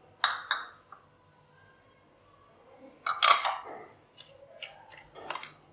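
Metal spoon knocking and scraping against a ceramic bowl while stirring ground corn flakes and bread crumbs together: a few short clinks, the loudest about three seconds in, with lighter taps near the end.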